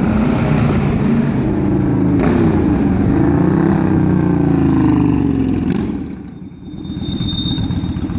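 1998 Honda VT1100 C3 Aero V-twin with short, wrapped Hard Krome exhaust, ridden past close by: loud, the revs rising and falling, then fading about six seconds in as it moves away, with a fainter pick-up of revs near the end.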